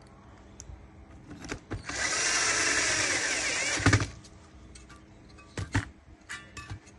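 A small power tool runs for about two seconds, with sharp clicks and taps before and after.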